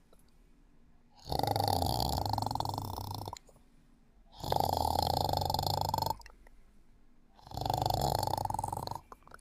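Snoring in sleep: three loud snores about three seconds apart, each lasting one and a half to two seconds, with quiet pauses between.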